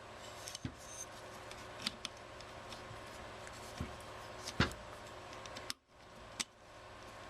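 Small metal clicks and taps, scattered over a faint steady background, as an anti-walk hammer pin is worked into an AR-15 lower receiver; the loudest click comes about four and a half seconds in.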